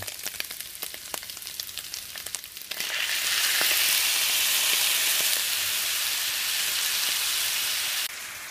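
Vegetables and scrambled egg crackling in hot oil in a frying pan. About three seconds in, boiled noodles that were cooled in cold water go into the pan and the sizzle jumps to a loud steady hiss, which drops off sharply shortly before the end.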